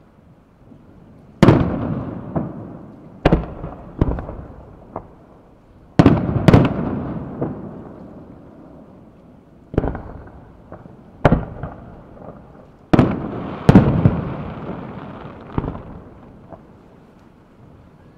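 Aerial firework shells bursting in the night sky: about nine or ten sharp, loud bangs at irregular intervals, some coming in quick pairs. Each bang is followed by a long rolling echo that dies away.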